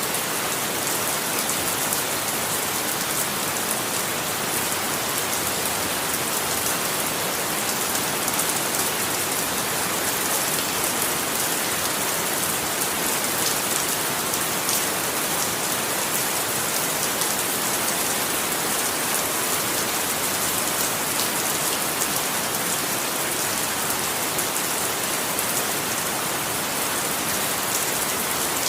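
Steady rain falling on a surface, an even hiss with fine patter of drops.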